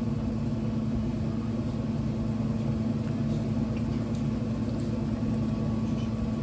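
Steady low mechanical hum with an even rumble underneath, unchanging throughout.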